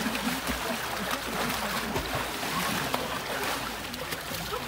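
Water splashing and sloshing as several bathers wade into and dunk in a hole cut in lake ice, with background crowd chatter.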